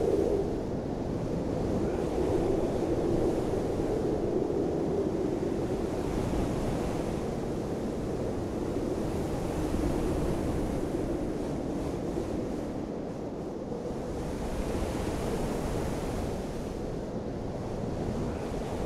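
Wind rushing and gusting with a low rumble on the microphone, swelling and easing every few seconds.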